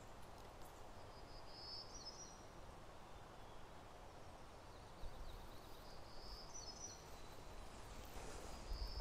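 Quiet outdoor ambience: a faint steady hiss with three short, high chirps spread across it, and a low rumble in the second half.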